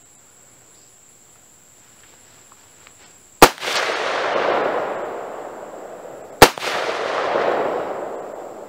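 Two AR-15 rifle shots (.223/5.56) about three seconds apart, each a sharp crack followed by a long rolling echo that dies away over a few seconds.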